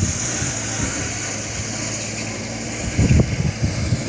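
A vehicle engine running steadily while travelling over an unpaved, gravel-filled road, with a few low rumbling surges about three seconds in.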